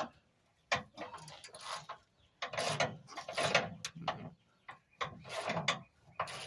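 Hand ratchet wrench clicking in short repeated strokes, at an uneven pace of about one to two a second, as a bolt is worked on the underside of a Ram 3500 pickup.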